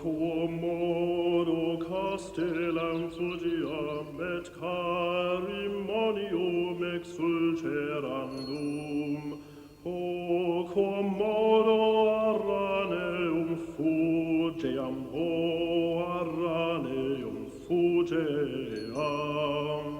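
Soundtrack music of chanted singing, with long held notes that slide between pitches and brief breaks between phrases.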